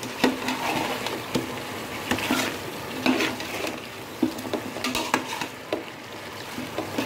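A metal slotted spatula stirring and scraping chicken pieces and potatoes through thick masala in a metal pot, with irregular clinks and scrapes against the pot over a steady sizzle as the chicken browns on low heat.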